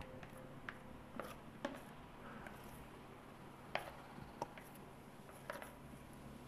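A handful of light clicks and taps, spread out, as a utensil scrapes shredded salad vegetables out of a plastic colander into a steel bowl.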